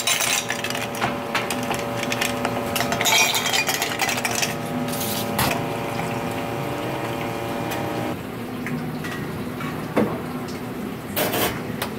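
Ice cubes clinking into glass mugs, then water and espresso poured over the ice, with sharp clinks as the cubes knock against the glass and shift.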